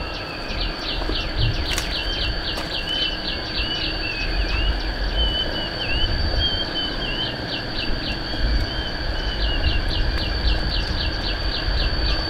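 Outdoor ambience: birds calling in runs of quick repeated chirps, about four a second, with warbling phrases between them, over a steady high insect drone and an uneven low rumble.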